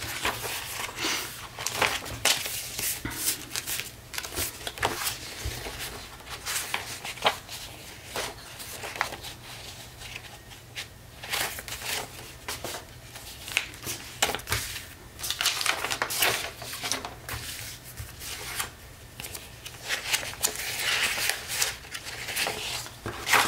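Loose sheets of paper and cardstock rustling as a stack of journal pages is shuffled, flipped through and rearranged by hand, with many short, irregular crinkles.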